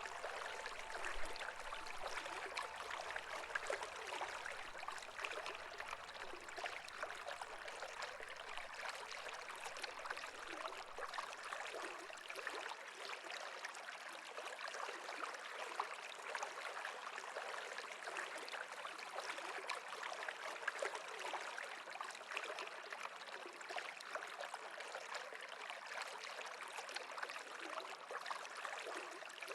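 Running water flowing steadily, like a stream, with a dense fine texture of small splashes and trickles.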